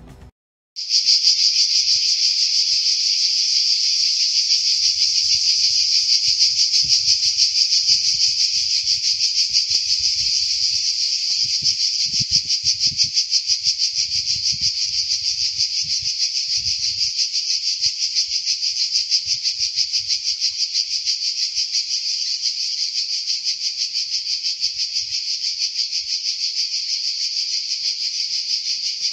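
Cicadas in a loud, steady chorus: a dense, high-pitched, rapidly pulsing buzz that starts abruptly about a second in and carries on unbroken.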